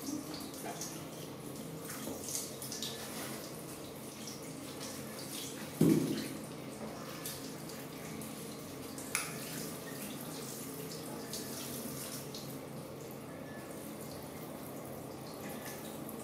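Handheld shower head spraying water steadily onto a baby monkey's fur and a plastic toilet lid. A brief loud sound about six seconds in, and a sharp click a few seconds later.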